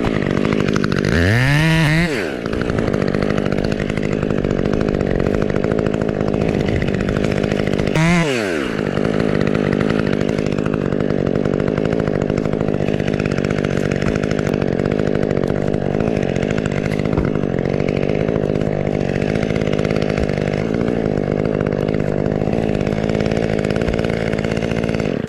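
Husqvarna chainsaw revving up twice, then running steadily under load as it cuts, its pitch settling lower and holding until it falls off sharply near the end.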